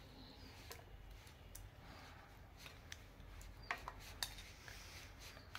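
Faint, scattered clicks and scrapes of a plastic spoon against a glass bowl while wet ginger-garlic-chilli paste is scooped out and dabbed onto raw chicken pieces. The sharpest clicks come a little past the middle.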